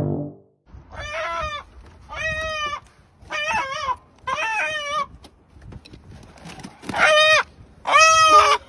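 A chicken calling in six short, pitched squawks: four about a second apart, then two louder ones near the end.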